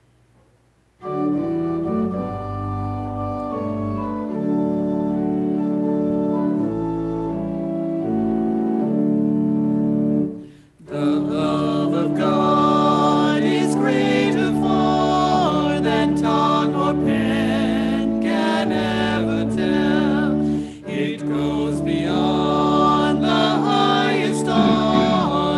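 Church organ playing a hymn introduction in steady held chords; after a brief break about ten seconds in, voices begin singing the hymn over the organ accompaniment.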